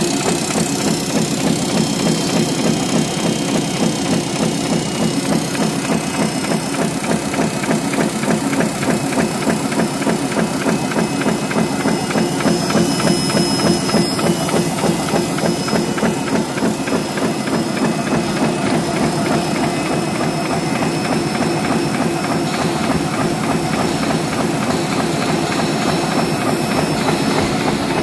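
Metal-die paper-roll punching machine running steadily, making paper strainers: a fast, even mechanical clatter of repeating strokes.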